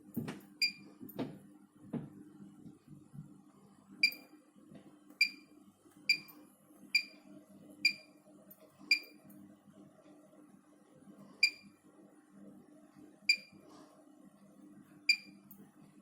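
Bosch Serie 6 Vario Perfect washing machine's control panel beeping as its buttons are pressed: about eleven short, identical high beeps at uneven gaps of roughly one to two seconds, as the wash programme is being set. A few low knocks come in the first two seconds, over a faint steady hum.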